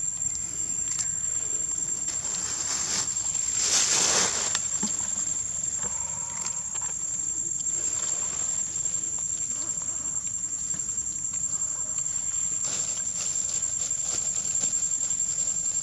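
Outdoor ambience: a steady, high-pitched insect drone, with a short rush of noise about four seconds in and a weaker one near the end.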